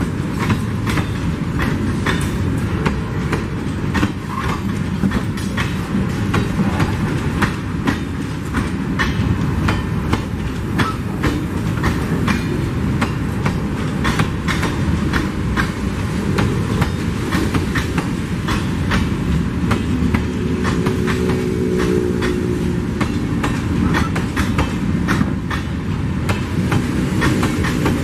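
Loaded mineral hopper wagons of a freight train rolling past close by: a steady rumble of steel wheels on the rails, with rapid clicking as the wheelsets cross the rail joints.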